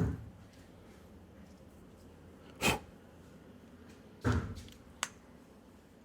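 Small carburetor parts being handled and set down while the diaphragm and spacer are refitted: a click at the start, a sharper knock near the middle, another knock with a brief low rumble a little after four seconds, and a short sharp click soon after.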